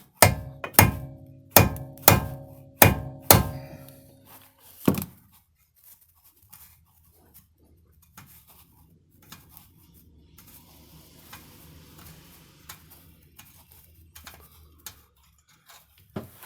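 Hammer striking steel parts of the front suspension, seven ringing blows in the first five seconds, knocking the tie rod end free. After that only faint handling of tools.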